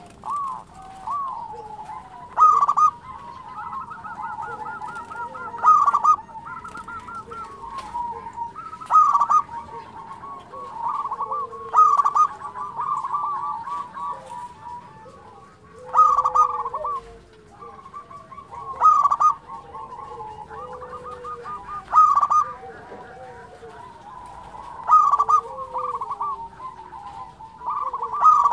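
Zebra dove (perkutut) singing its cooing song in full voice. A loud phrase comes about every three seconds, and between phrases there are quick runs of rapid staccato notes.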